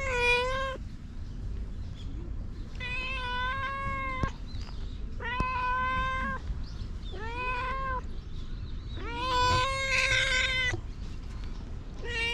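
Tortoiseshell cat meowing repeatedly: six drawn-out meows, a second or two apart. The one about ten seconds in is the longest and loudest.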